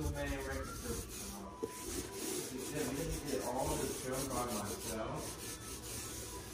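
A small paint roller being rolled back and forth through wet navy paint on a flat cabinet door panel: a continuous rubbing sound.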